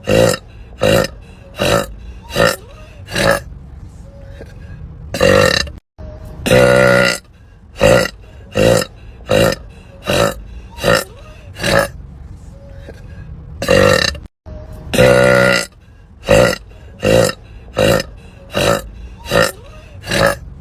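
Women burping over and over: a quick run of short, loud burps about one a second, with a few longer, drawn-out ones. The run is broken twice by a sudden moment of dead silence.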